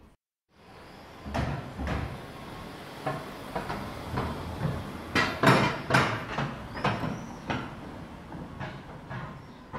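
A car driving slowly along a narrow paved street, its low engine rumble under a run of irregular knocks and clacks, loudest about midway through.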